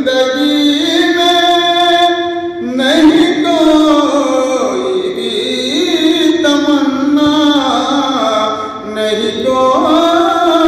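A man singing a naat, an Islamic devotional song in praise of the Prophet, solo and without instruments, in long held notes that slide up and down between pitches.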